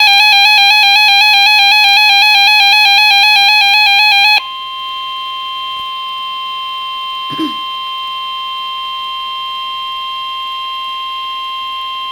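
Emergency Alert System alert tones: a loud, rapidly warbling electronic tone for about four seconds, then a sudden switch to a steady single-pitched attention tone that holds on, with a brief faint blip midway.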